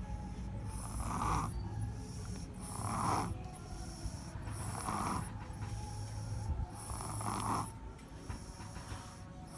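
Snoring while asleep, one snore about every two seconds in an even rhythm.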